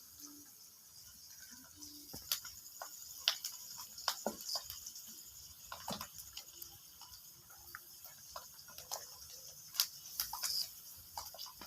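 Scattered light clicks and taps of kitchen work, irregularly spaced, over a faint steady high hiss.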